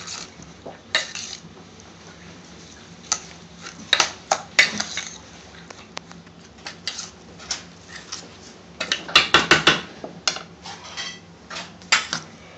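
Metal spoon clinking and scraping against a stainless steel mixing bowl as a chopped vegetable salad is tossed, in irregular strokes with a quick flurry of clinks about nine seconds in.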